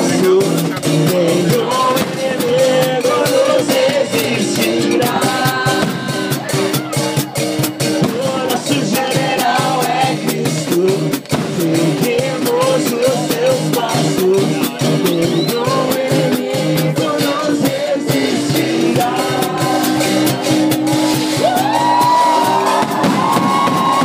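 A song with a singer over a full band accompaniment, loud and continuous.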